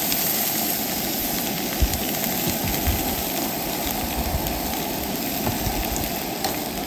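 Scallops and green onions sizzling in an oiled skillet on a propane camp stove: a steady frying hiss with a few faint ticks.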